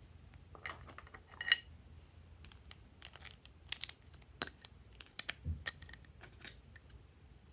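Plastic lipstick cases clicking and rattling as they are handled, a run of sharp clicks and short scrapes with the loudest click about one and a half seconds in.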